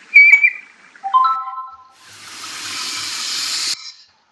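Recorded Eurasian otter calls: a sharp, high whistle with a click at its start, then a shorter, lower call of a few steady tones about a second in, followed by a rising hiss that cuts off suddenly.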